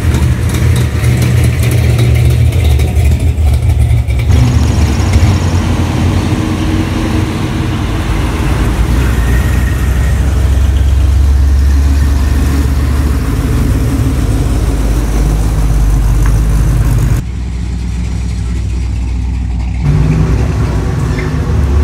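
Classic Mopar V8 muscle cars rumbling as they drive slowly past, with deep exhaust burble and some revving. The sound changes abruptly a few times as it jumps between cars.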